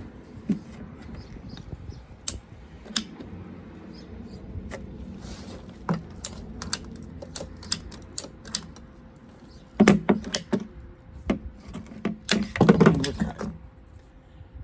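Scattered clicks, knocks and rattles of plastic pipe pieces and tools being handled, with two louder clattering bursts, one about ten seconds in and one about thirteen seconds in.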